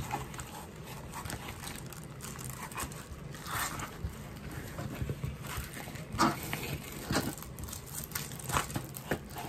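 Paper and plastic film rustling and crinkling as a plastic-covered diamond painting canvas is rolled up by hand around a tube, with a few sharper crinkles, the loudest about six seconds in.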